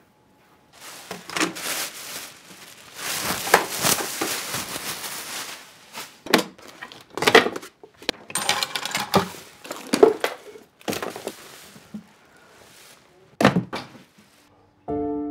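Clothes and belongings rustling as they are handled and packed into a cardboard box, with several sharp knocks and thunks of items set down. Music comes in near the end.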